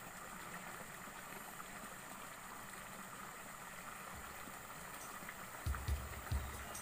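Small stream pouring over a low rocky ledge: a steady rush of water. A few short low thumps come in near the end.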